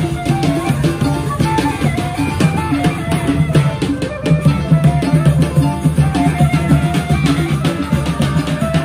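Ale-ale street band music, loud and unbroken: drums beating a dense, steady rhythm under a stepping keyboard melody.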